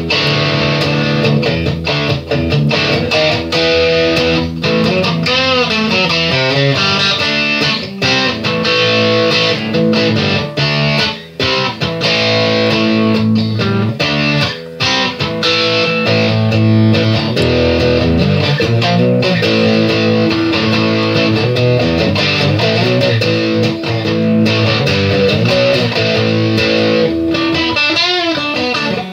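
Background music led by electric guitar, with bent, wavering notes.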